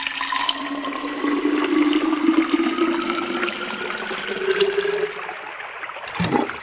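Liquid pouring steadily into a vessel, its pitch rising as the vessel fills, followed about six seconds in by a short bubbly bloop.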